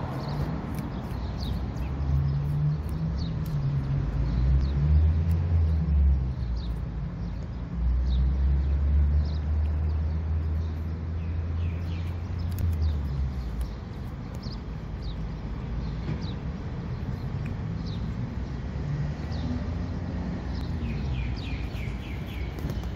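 Low engine rumble that swells for about ten seconds and then fades, with small birds chirping repeatedly throughout. Faint crisp clicks of a cat crunching dried fish sound through it.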